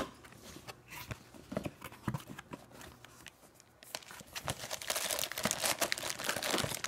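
Plastic packaging of a spinning reel being handled as its cardboard box is opened: scattered taps and rustles, then dense crinkling of the plastic bag from about four seconds in.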